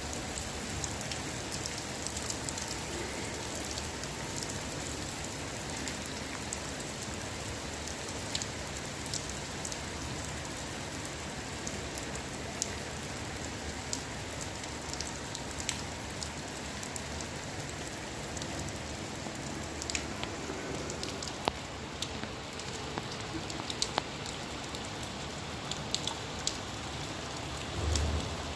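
Steady rain falling, with scattered individual drops ticking sharply on a surface. A brief low thump near the end.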